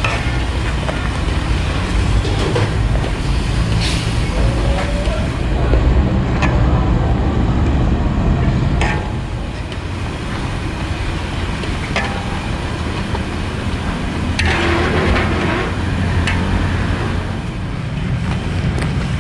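Metal spatula scraping and stirring a thick, bubbling soybean-paste mixture in a large metal wok, with a few sharp scrapes and a denser stretch of scraping about three-quarters of the way in. Underneath runs a steady low rumble.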